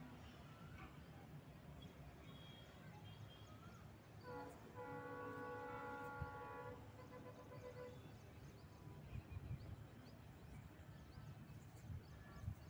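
Faint background noise and low hum, with a steady pitched note holding for about two seconds near the middle.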